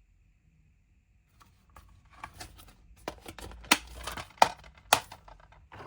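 A DVD case and its packaging being handled: rustling and crackling, with a few sharp plastic clicks, the loudest in the second half.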